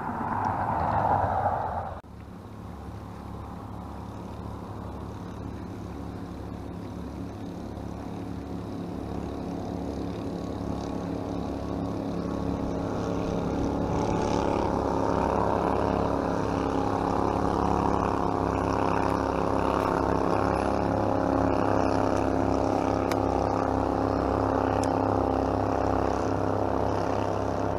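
Motorboat engine running steadily, growing louder over the first dozen seconds or so and then holding level. A brief louder rushing sound in the first two seconds stops abruptly.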